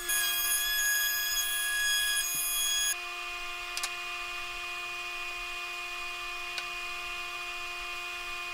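DeWalt compact router running at speed with a high whine, routing a roundover on the tabletop edge; it cuts off abruptly about three seconds in, leaving a quieter steady hum.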